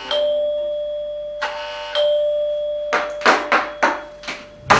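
Apartment doorbell ringing twice, each ring a single steady tone fading over about two seconds, followed by a quick run of sharp knocks on the door.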